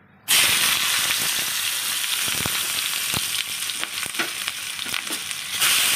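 Sliced onions dropped into hot oil in a non-stick kadai: a loud sizzle starts suddenly a moment in and goes on steadily, with scattered sharp pops and crackles.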